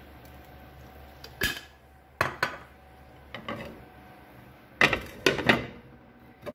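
Kitchenware clinking and knocking in short separate hits over a frying pan. The loudest cluster, about five seconds in, is a glass lid being set onto the pan.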